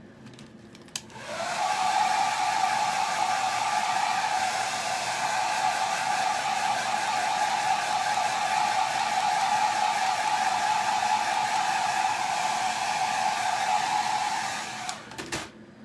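Handheld hair dryer switched on about a second in, running steadily with a hum, and switched off near the end, drying wet chalk paste on a stenciled pillow cover.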